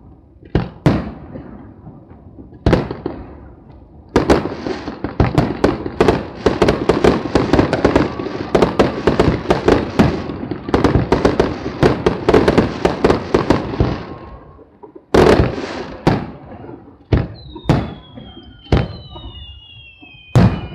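Aerial fireworks shells bursting with sharp bangs. From about four seconds in comes a dense run of rapid crackling bangs lasting some ten seconds, then single bursts again, with two falling whistles near the end.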